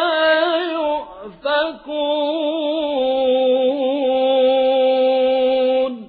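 A man reciting the Quran in the melodic chanted style, a winding, ornamented phrase with a brief break about a second in, then one long steady held note that stops near the end.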